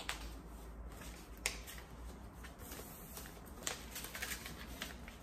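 Faint rustling of A4 paper flyers being handled and unfolded, with a few sharp paper clicks: one at the start, one about a second and a half in, one near four seconds.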